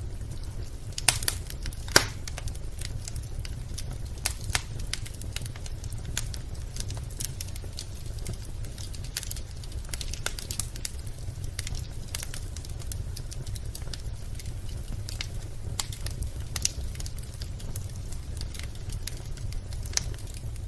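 Recorded wood-fire crackling: irregular pops and snaps, a few louder ones near the start, over a steady low rumble. This is the sound of burning firewood that accompanies the steam-flame imitation fireplace.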